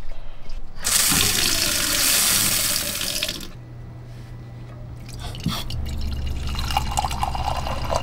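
Faucet running water into a glass. There is a bright, loud gush for about two and a half seconds. After a quieter moment and a single click, the water runs again more softly.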